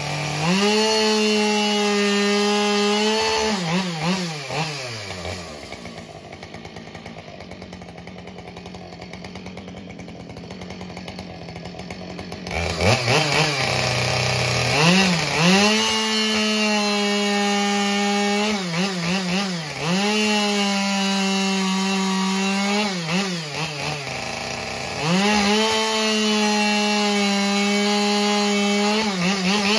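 Two-stroke chainsaw run at full throttle in long steady stretches, as when cutting through wood. It drops back to idle about four seconds in, revs up again after about twelve seconds, and runs flat out three more times with short dips in between.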